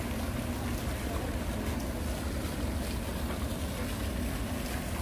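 Wind buffeting the microphone outdoors: a steady low rumble with a hiss over it.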